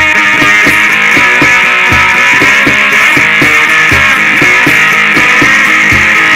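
Amplified three-string cigar box guitar playing a blues-rock riff in an instrumental passage, over a steady rhythmic beat.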